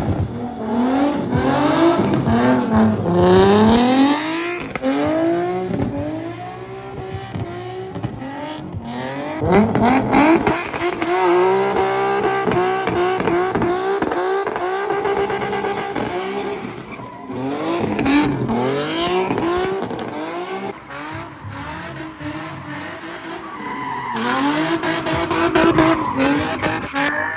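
Nissan 350Z's V6 engine revving hard in a drift, its pitch climbing and dropping over and over, with the rear tires squealing and skidding as they spin.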